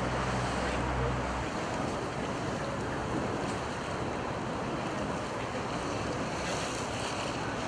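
Wind buffeting the microphone over the rush of water around a moving river water bus. A low steady engine hum stops about a second and a half in, leaving only the wind and water.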